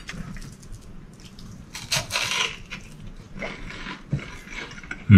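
Salt being sprinkled onto crispy battered food: a short rasping hiss about two seconds in, followed by a few light clicks.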